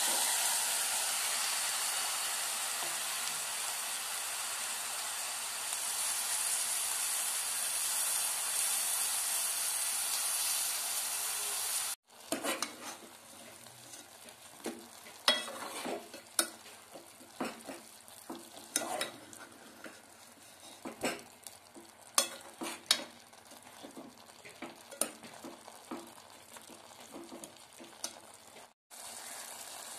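Raw mutton pieces sizzling in hot oil with onions and green chillies, a loud, even hiss that slowly fades. After an abrupt cut about twelve seconds in, a steel ladle stirs and knocks against the metal pot in quick clicks over a quieter sizzle.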